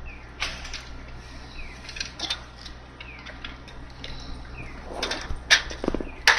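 Scattered sharp clicks and knocks of hand tools and metal fittings as a worker on a stepladder works on a station name sign. They are loudest near the end, with a short rattle just before. A faint short falling chirp repeats about every second and a half behind them.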